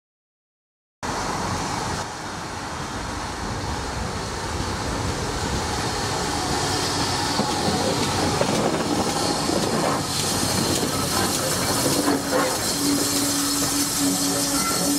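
Steam-hauled passenger train running slowly along a station platform, with wheels on the rails and some steam hiss; it starts suddenly about a second in. Near the end a steady squeal sounds on and off.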